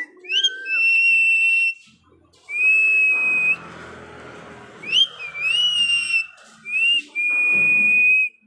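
Pet parrot whistling: four long, steady high whistles, each starting with a quick upward swoop.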